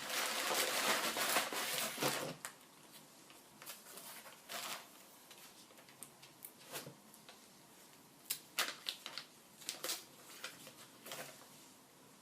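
Packaging rustling and crinkling as a replacement laptop LCD panel is unboxed: a dense rustle for about the first two seconds, then quieter scattered clicks and rustles.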